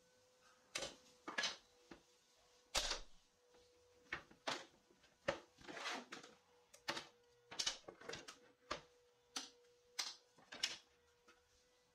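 A string of sharp wooden knocks and clicks, roughly one or two a second and irregular, as wood pieces and clamps are handled and set down on a workbench, over a faint steady hum.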